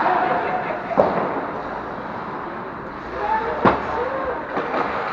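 Ice hockey game noise: a steady hiss of skating and play across the rink, with two sharp clacks of stick and puck, about a second in and near four seconds in, and faint shouts from players.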